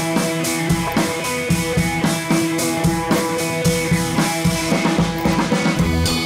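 Background music with drums keeping a steady beat.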